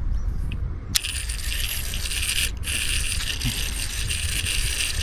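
FishingFans DCONE digital baitcasting reel during a cast: a sharp click about a second in, then the spool spinning as line pays out, with a high metallic buzz from its electronic brake. The buzz cuts off abruptly about two and a half seconds in, as the spool stops, then a similar buzz starts again as the reel is worked.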